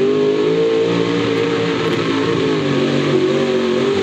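Mud bog buggy's engine run hard at high revs as it churns through a mud pit, its pitch holding high and wavering a little.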